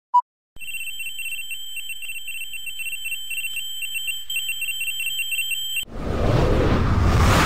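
A short beep, then a high electronic ringing tone that flutters rapidly for about five seconds. Near the end it cuts off suddenly and a louder noisy rush takes over.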